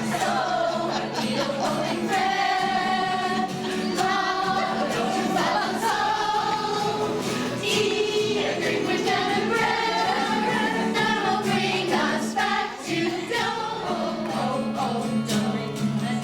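A women's choir singing together.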